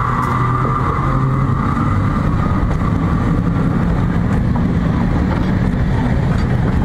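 Train of locomotives rolling past at close range: a high electric whine from the Clayton CB40 battery-electric locomotive fades in the first second or two as it moves away, then the steady low rumble of the diesel locomotives it is hauling going by on the rails.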